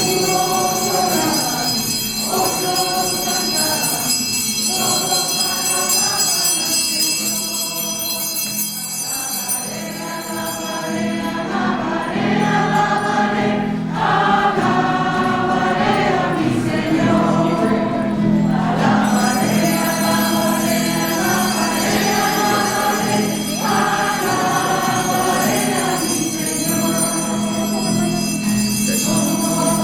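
Church choir singing a hymn over steady held chords, the sung notes changing every second or two.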